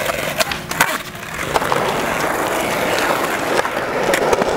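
Skateboard wheels rolling on smooth concrete, with a few sharp clacks of the board in the first second and another near the end.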